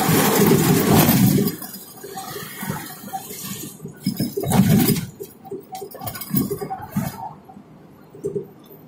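Road noise inside a vehicle travelling on a highway, loud for the first second and a half and then much quieter. Uneven low rumbles and light clinking and rattling come through after that.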